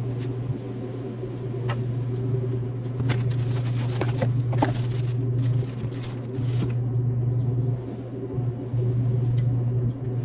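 Toyota D-4D diesel engine running at idle: a steady low hum with irregular light clicks over it.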